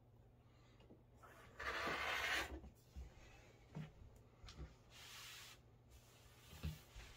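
Rotary cutter drawn along a ruler through the layers of a quilt on a cutting mat: a scraping cut about one and a half seconds in, lasting about a second, and a fainter one around five seconds. Light knocks and rustles of the ruler and fabric come in between and near the end.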